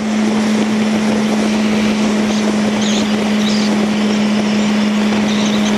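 Yamaha R1 inline-four engine running at steady, slightly high revs, one unchanging note over wind rush. The revs are held up so the engine can slow the bike quickly when the throttle is closed.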